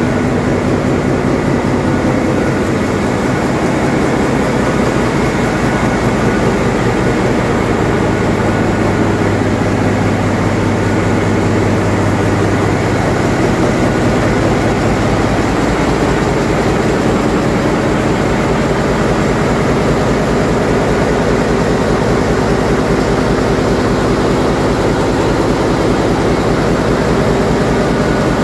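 Ship's engine-room machinery running: a loud, steady din of engines and pumps with several hum tones. A low hum grows stronger for a few seconds in the middle.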